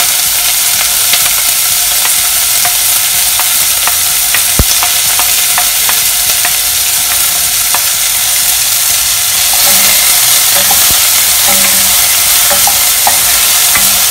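Chopped red onion and garlic sizzling loudly in hot oil in a stainless steel pot, with a wooden spoon scraping and clicking against the pot as they are stirred.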